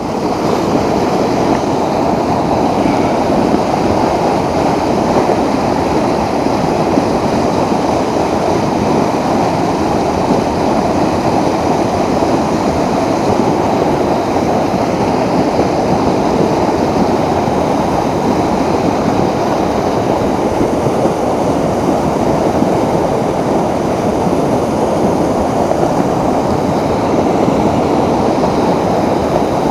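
Whitewater of a mountain torrent running steady and loud, an unbroken rushing noise.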